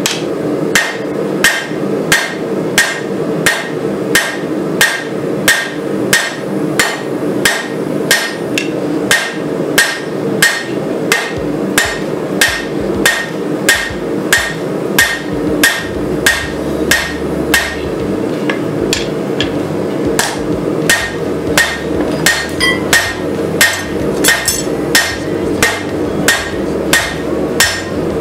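Hand hammer striking a hot rebar blade on a Cavalry anvil: sharp, even blows at about two a second as the steel is forged into shape, over a steady drone.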